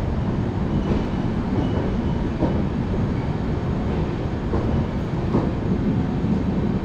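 Indian Railways passenger train departing, its coaches rolling past the platform with a steady noise of wheels running on the rails.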